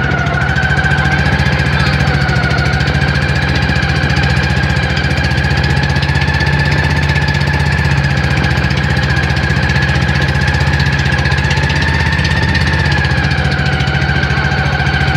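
Engine of a motorized outrigger boat running steadily under way while towing, heard loud from on board, with a fast even pulsing and a steady whine that rises slightly about a second in and drops back near the end.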